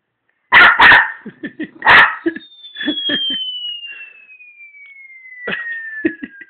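Dog barking loudly, three sharp barks in quick succession, then quieter yips and grumbles. From about two seconds in, a thin high tone slides slowly and steadily downward in pitch underneath.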